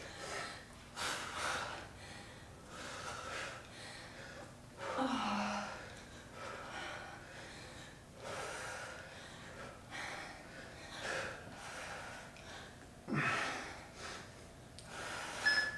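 Heavy breathing of people straining through reverse crunches: hard, breathy exhalations every second or two, with a short voiced grunt about five seconds in.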